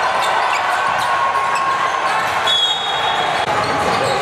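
Basketball game on a hardwood court: the ball bouncing and players' footfalls, over a steady hum of voices in a large, echoing gym. A high squeak lasts about a second midway through.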